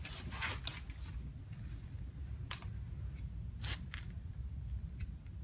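Handling noise: a few light clicks and rustles spread over several seconds, over a low steady rumble. No shot is fired.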